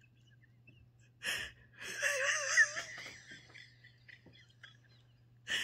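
A woman laughing quietly: a sharp breath in about a second in, then a wavering, high-pitched laugh that trails off into breathing.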